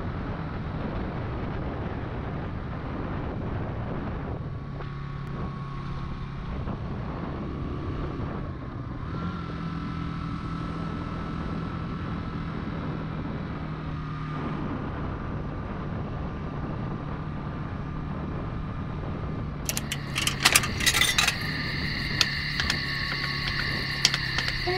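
Yamaha XT250 motorcycle's single-cylinder four-stroke engine running steadily while riding. About twenty seconds in there is a quick cluster of clicks and rattles, followed by steady high-pitched tones.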